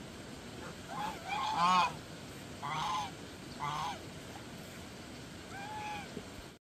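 Domestic waterfowl honking, about five calls, the longest and loudest about one and a half seconds in and a softer, lower one near the end.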